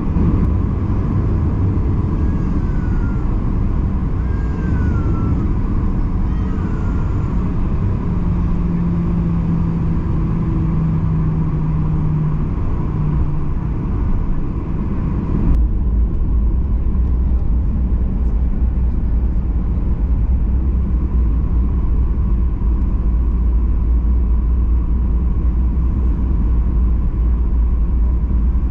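Steady engine and cabin noise inside a Boeing 737-800 airliner. Partway through it changes suddenly to a deeper, heavier rumble.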